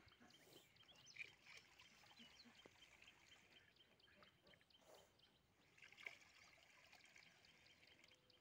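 Near silence, with faint trickling as pond water is poured from a plastic dipper into a plastic bag of carp spawn, mixing the water to acclimatize the spawn before release.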